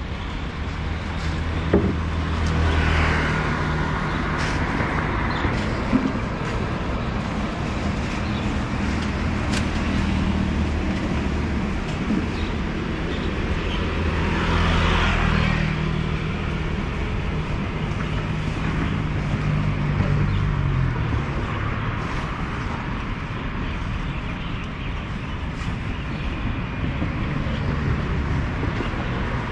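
Road traffic: vehicle engines running with a steady low hum, with two passing swells, one about three seconds in and one around the middle. The hum fades out about two-thirds of the way through.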